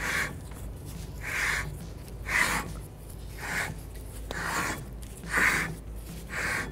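Seven short rasping scrapes, roughly one a second, as a flat-blade screwdriver works the parking brake shoes' star adjuster through the access hole in the rotor hat, setting the shoe clearance.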